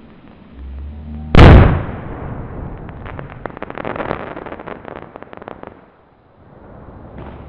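A firework goes off with one very loud bang about a second and a half in, followed by a few seconds of rapid crackling pops.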